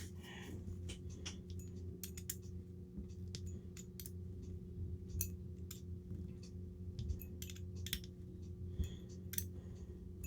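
Irregular light clicks and taps of small metal parts and hand tools being handled while reassembling an RC crawler's front portal gearbox, over a steady low hum.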